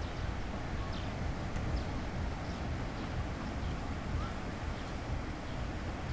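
Beach ambience: steady surf noise with a low wind rumble on the microphone, and a few faint, short distant voices and cries of people on the beach.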